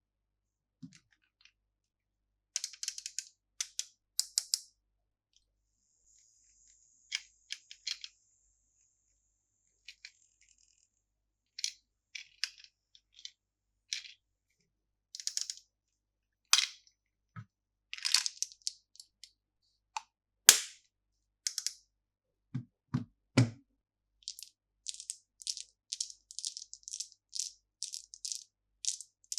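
Plastic candy packaging being handled and opened: scattered sharp crinkles and clicks in short clusters with silent gaps, a few dull knocks a little after twenty seconds, and a quick, fairly even run of clicks near the end.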